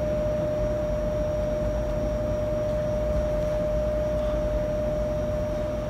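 Steady room hum: an even low rumble with a constant mid-pitched whine.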